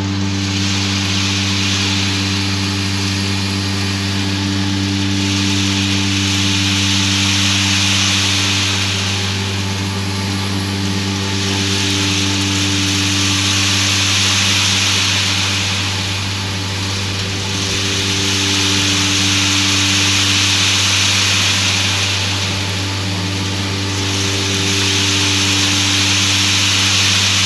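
Corn grain dryer running, with its fan and burner going: a steady low hum under a rushing hiss that swells and fades about every five to six seconds.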